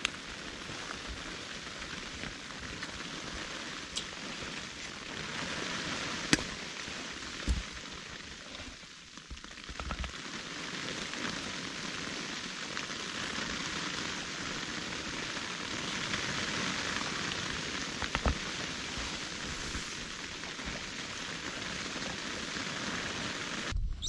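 Snowstorm: a steady hiss of falling snow pattering on the canvas tent, with a few sharp ticks.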